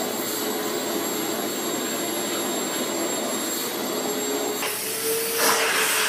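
Vacuum cleaner running steadily with a whine, its hose wand and nozzle run over a cat's fur. About four and a half seconds in, the sound switches to another vacuum with a brighter, louder hiss.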